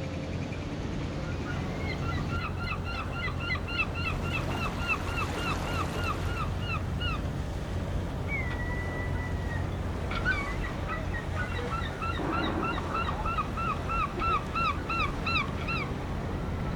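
A bird calling in two rapid runs of short repeated notes, about four a second, with a single falling whistle between them, over a steady low rumble of surf or wind.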